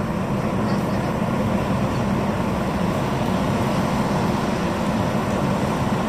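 Steady low rumble of a vehicle engine running, even in level throughout.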